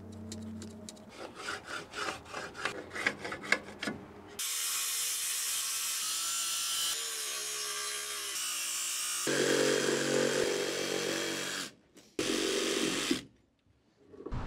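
About four seconds of short scratching strokes, then a cordless DeWalt circular saw cutting through a Versa-Lam LVL beam for several seconds, and briefly once more near the end.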